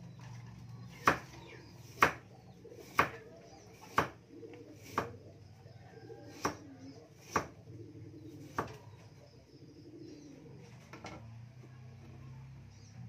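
Kitchen knife chopping through a vegetable onto a wooden chopping board: sharp knocks about once a second, the first few loudest, thinning out in the second half.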